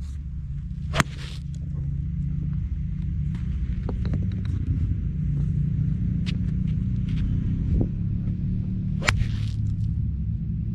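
Two sharp strikes of a golf iron hitting the ball, about eight seconds apart, each with a short ring after, over a steady low rumble. A few fainter clicks fall between them.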